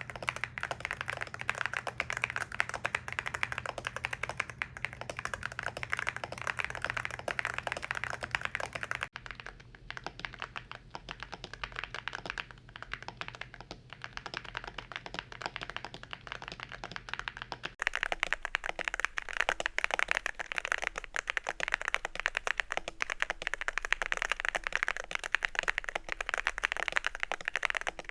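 Continuous fast typing on a YUNZII C75 mechanical keyboard with Milk V2 switches and a jelly-tape-filled spacebar: a dense stream of keystroke clacks. The typing turns softer and duller for several seconds in the middle, then returns to full loudness.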